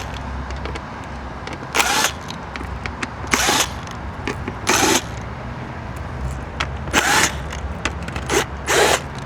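Power driver with a 1/4-inch nut driver bit running in about five short bursts, backing out the bolts that hold the air box on the front of a Johnson 70 hp outboard.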